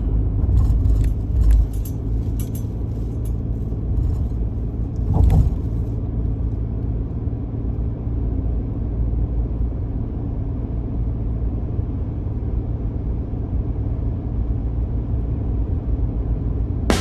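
Steady low rumble of a car driving, with a few light clicks and rattles in the first six seconds.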